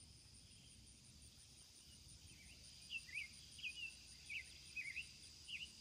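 Faint, steady chorus of crickets and other summer insects, an even high trill. From about halfway through, a bird gives a series of short, quick chirps, about seven, which stand out above the insects.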